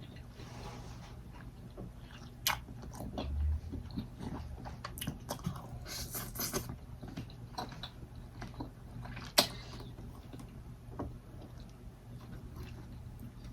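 Eating sounds: chewing and biting, with scattered wet clicks and crackles and a couple of sharper snaps.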